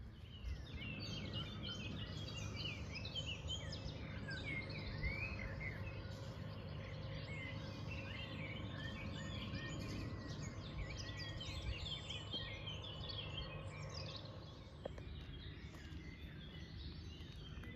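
A flock of small birds chirping and twittering together in a busy chorus, thinning out near the end, over a low steady hum.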